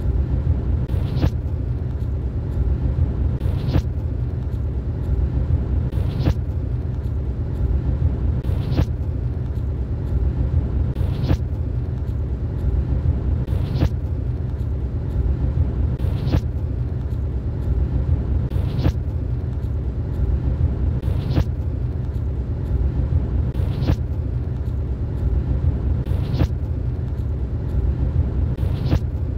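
Steady low rumble of road and engine noise heard from inside a moving vehicle. A faint sharp tick repeats about every two and a half seconds.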